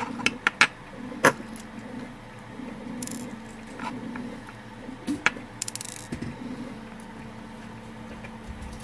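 Small metal parts of a Chinon FZ-357 floppy drive and a small screwdriver being handled: a quick run of sharp clicks and taps in the first second or so, two more about five seconds in, and brief light metallic rattles in between.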